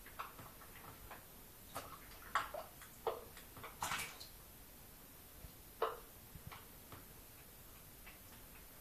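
Ping pong ball and kittens' paws knocking and skittering in a bathtub: irregular light taps and clicks, the loudest bunched between about two and four seconds in, with another near six seconds.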